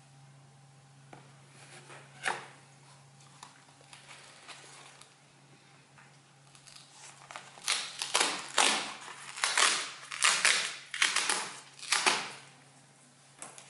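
Flat cardboard packaging being handled and opened on a table: a single scrape about two seconds in, then a quick run of loud scraping, rustling cardboard strokes through the second half.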